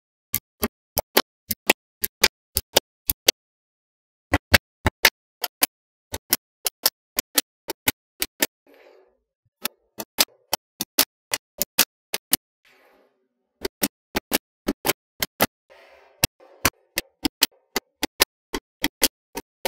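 Small magnetic balls snapping together one at a time: sharp clicks about three or four a second, in runs broken by short pauses, with a faint soft rattle between some runs.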